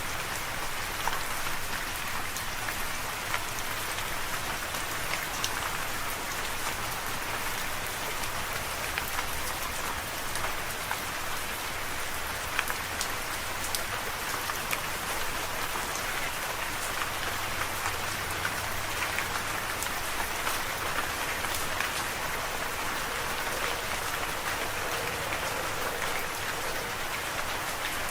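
Steady rain falling, a dense even patter with scattered louder individual drops.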